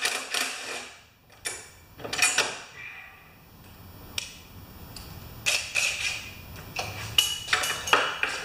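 Short rattling, clinking bursts of a tool working the 7/16 bolt that holds the pull rope on a push mower's handle, with a brief whine about 7 seconds in.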